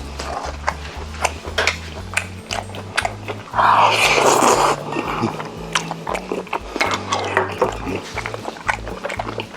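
Close-miked eating sounds from a mouthful of rosé braised chicken: quick wet chewing and mouth clicks, with a louder, noisy mouth sound lasting about a second a little before halfway. Low background music runs underneath.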